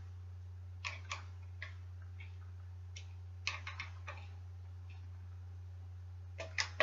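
Irregular light clicks and clinks of small bicycle parts and tools being handled, with a quick cluster of clicks near the end, over a steady low hum.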